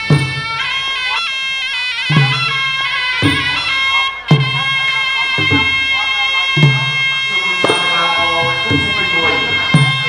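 Traditional Kun Khmer boxing music: a reedy sralai oboe playing a sustained, wavering melody over drum strokes about once a second.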